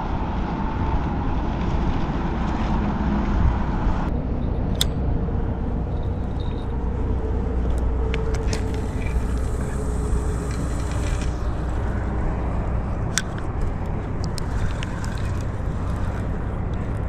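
Steady low outdoor rumble, with a few light clicks.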